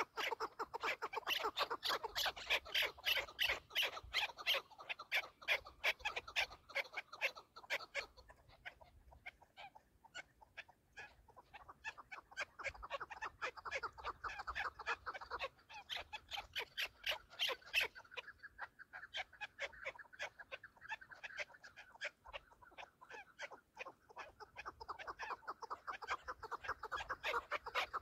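Chukar partridges calling: long runs of rapid, repeated clucking notes. The calling thins out about a third of the way in and then picks up again.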